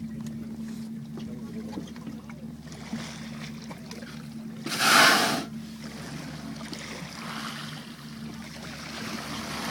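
Boat engine idling with a steady low hum; about five seconds in, a loud whoosh lasting under a second, a humpback whale's blow as it surfaces beside the boat.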